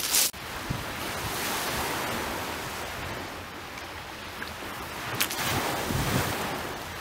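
Small waves washing onto a shingle beach, with wind on the microphone; the wash swells twice, about a second in and again near the end. A short sharp knock sounds right at the start.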